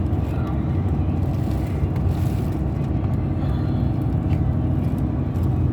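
Car cabin road noise while driving: a steady low rumble of engine and tyres, with a brief hiss about two seconds in.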